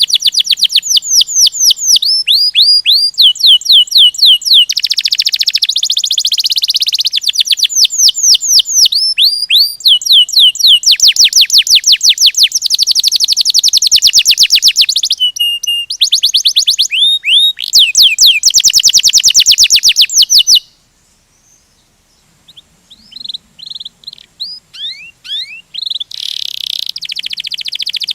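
Domestic canary singing its rolling song: long runs of very fast trills and rapid repeated high notes, one phrase after another. The song breaks off for a second or two about two-thirds of the way through, comes back softly, then rises to full song again near the end.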